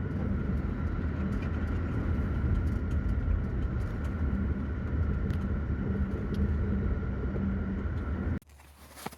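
A motor vehicle driving, a steady road rumble with a faint steady whine above it; it cuts off abruptly near the end.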